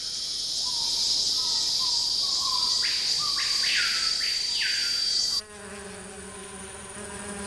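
Tropical rainforest insect chorus: a steady high-pitched trill with repeated chirping calls over it, cutting off abruptly about five seconds in. After that, quieter sustained tones remain.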